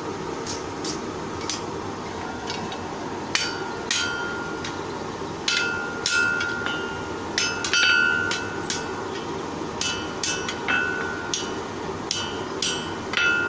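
Hand hammer striking hot iron bar on an anvil while shaping a scroll freehand. The blows come irregularly, about fifteen in all with short pauses, and the anvil rings after each.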